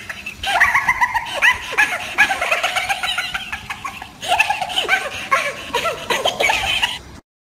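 High-pitched laughter, a rapid run of short falling 'ha' sounds with a brief pause about four seconds in, cutting off abruptly just before the end.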